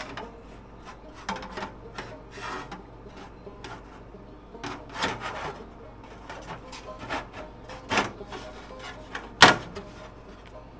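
A license plate being slid and shifted about against other plates and a surface: irregular rubbing scrapes and light clicks, with one sharper knock about nine seconds in.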